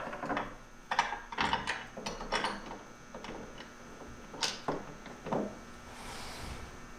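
Irregular knocks and clicks of hard mounting hardware being handled and set in place on a truck-bed tool box as the clamp brackets are fitted, with a short rustling hiss about six seconds in.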